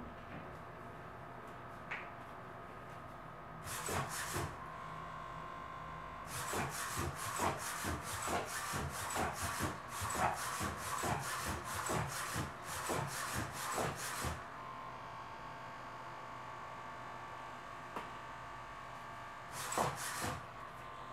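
Hexapod robot's leg servos whirring as it walks, a rhythmic run of short strokes about two a second for some eight seconds, with one brief burst before it and another near the end.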